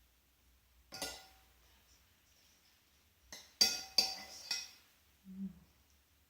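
Metal cutlery clinking against crockery: a single clink, then a quick run of four sharp clinks a couple of seconds later.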